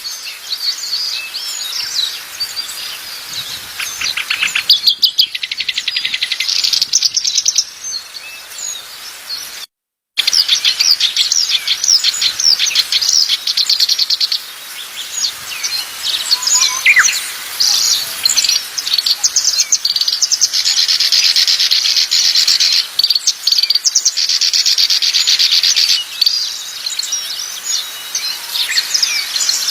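Small songbirds singing together in dense, rapid trills and twitters, with a few clear whistled notes. The sound cuts out completely for about half a second around ten seconds in, then resumes.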